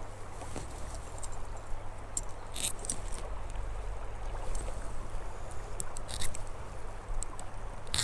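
Creek water running steadily, under a low rumble of wind on the microphone, with a few light clicks about two and a half seconds in and again near six seconds.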